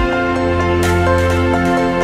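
Background music: an electronic new-age style track with held synth chords and a brief cymbal-like hiss about a second in.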